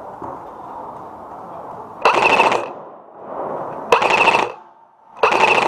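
Airsoft rifle firing three short full-auto bursts, each a rapid string of shots about half a second long, roughly a second apart.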